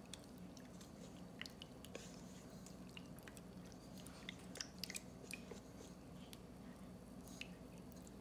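Faint wet squelching and small splashes of a hand squeezing sourdough starter to dissolve it in water in a stainless steel bowl, as a string of short irregular clicks and squishes, a few louder ones about halfway through, over a low steady hum.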